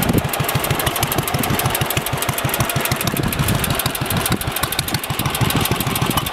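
1948 Ariens rototiller's single-cylinder, air-cooled Wisconsin AHH engine idling with a steady, even exhaust beat, running smoothly.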